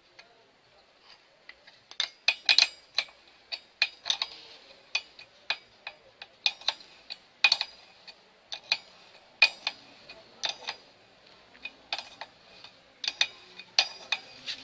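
Irregular sharp metallic clicks and clinks, about one or two a second, as a bicycle pedal is threaded and tightened into the crank arm.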